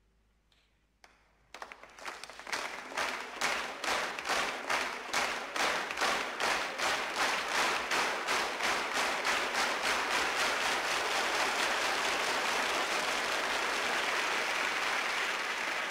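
An audience applauding: after a near-silent pause, a clap or two, then many hands take up clapping in unison at about three claps a second. The rhythm gradually blurs into continuous applause.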